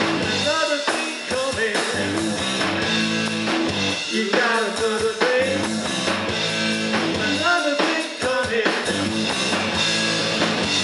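Live rock band playing through a PA: distorted electric guitar, bass guitar and drum kit, with a man singing.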